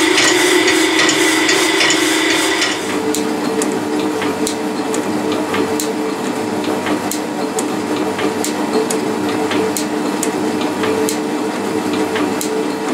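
For about the first three seconds a powered metal-cutting saw runs through steel with a fast, rhythmic clatter. Then a metal shaper takes over, planing a steel plate: a steady machine hum with regular sharp ticks as the tool cuts and throws off curly chips.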